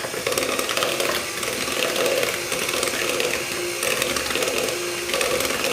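Electric kitchen mixer running steadily, beating a sticky butter, sugar and egg mixture in a bowl.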